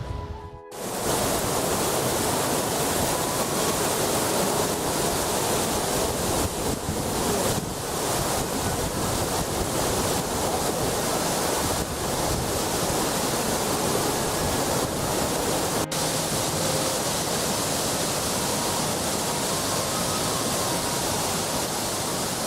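Waterfall: a steady, dense rush of falling water, starting after a brief drop-out at the very beginning.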